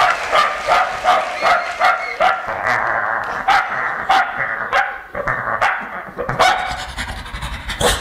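Beatboxer's vocal imitation of a dog barking and yipping into a microphone over the PA, in short repeated barks about three a second.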